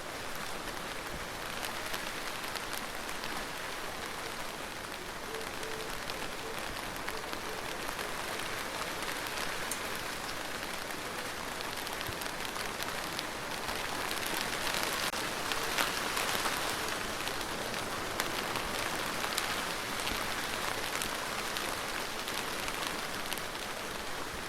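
Steady rain falling on a hard surface, an even hiss dotted with the ticks of single drops. It grows slightly heavier a little past halfway through, then eases back.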